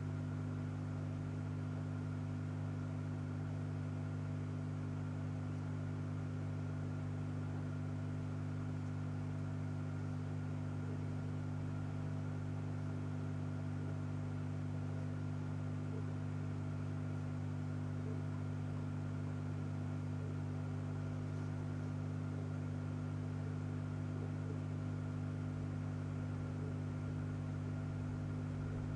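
Steady electrical hum made of several fixed low tones over a faint hiss, typical of aquarium equipment such as a running pump.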